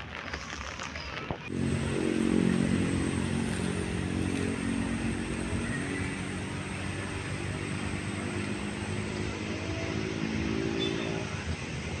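Diesel tour bus engine running with a steady low drone. It starts about a second and a half in, eases slightly after its first seconds, and stops shortly before the end.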